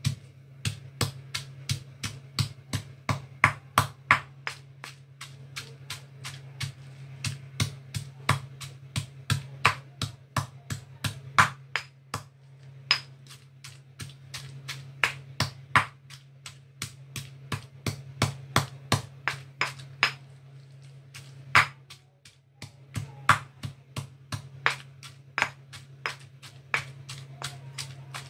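Pestle pounding dried chillies in a stone mortar: sharp, regular strikes about two a second, with a short pause about two-thirds of the way through.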